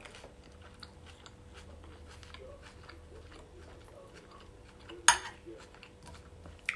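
Close-up chewing of grilled octopus, with many small wet mouth clicks, and one short, sudden loud noise about five seconds in.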